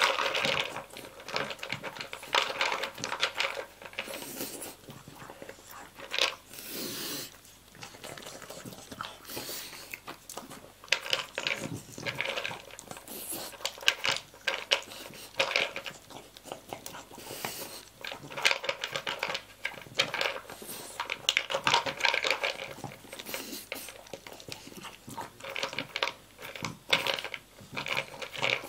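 Dog eating dry kibble from a plastic slow-feeder bowl: crunching and licking, with kibble and muzzle clicking and rattling against the plastic in irregular bursts.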